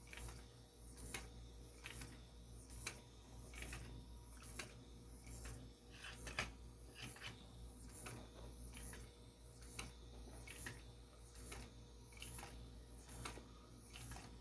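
A small 3D-printed claw-foot walking robot toy, driven by an N20 gear motor, walking on a wooden desk: its plastic mechanism and feet click once per step, in a steady rhythm a little over once a second.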